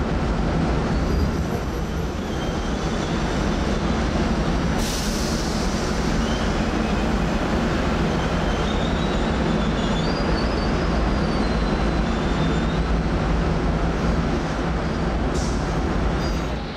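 A passenger train running along the track: a steady rumble with faint, high wheel squeals drifting in and out, and two short hisses about five seconds in and near the end.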